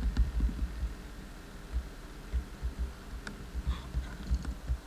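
Irregular low thumps and rumble on a handheld camcorder's microphone, with a few faint clicks and a short faint high chirp about three-quarters of the way in.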